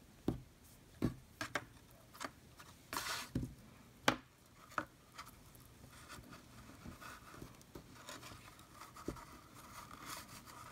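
Hands handling a paper basket, a metal binder clip and baker's twine: scattered light taps and clicks, a short brushing sound about three seconds in, then softer rubbing and rustling as the twine is wound around the ribbon.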